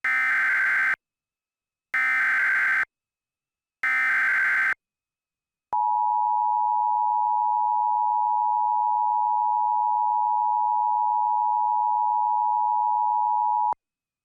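Emergency Alert System tones opening an alert. First come three short bursts of SAME digital header data, about two seconds apart. Then the two-tone attention signal is held steady for about eight seconds and cut off sharply.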